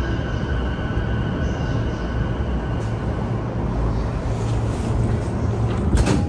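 JR E233-7000 series electric train cabin at a standstill: a steady low equipment hum, with a high steady whine that fades out about two and a half seconds in. A sudden loud clunk near the end as the doors open.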